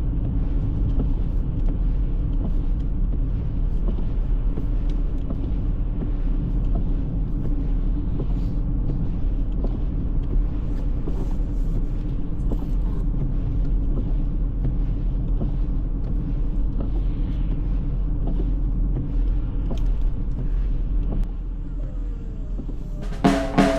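Car driving steadily: a constant low rumble of engine and road noise with a held engine tone, easing off slightly near the end.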